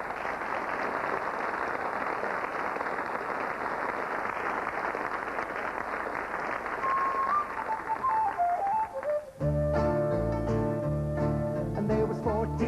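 Studio audience applauding for about nine seconds, with a few descending whistle notes near its end. Then an Irish folk band's instrumental intro starts suddenly, with strummed banjo and guitars under a held whistle note.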